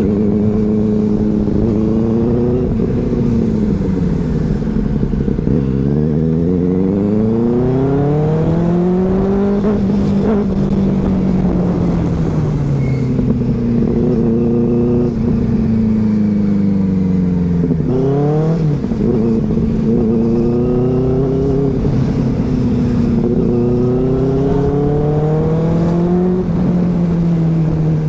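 Superbike engine heard from the rider's seat while under way, its note rising and falling again and again as the throttle is opened and closed, with a sudden drop in pitch about two-thirds of the way through.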